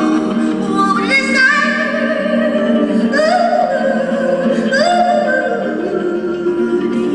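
A woman singing with long sliding notes over a plucked concert harp.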